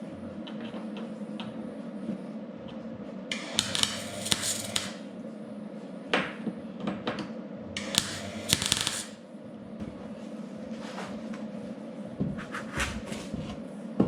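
Dent-pulling work on a caved-in car body panel: sharp metallic taps and clicks over a steady hum, with bursts of hissing noise about a second long near 3.5 s, 8 s and 12.5 s in.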